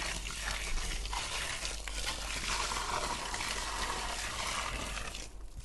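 Water poured in a stream from a container into an earth pit, splashing and trickling onto the charcoal and salt packed around a copper earthing grid, wetting the backfill of a lightning-arrestor earth pit. The pour breaks off briefly near the end.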